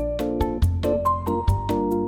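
Upbeat background music: keyboard or mallet-instrument melody over a steady bass and a beat of about four to five strokes a second.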